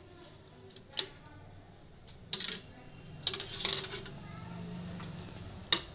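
Steel spoon stirring thick yogurt in a ceramic bowl, with a few sharp clinks as it knocks against the bowl's side.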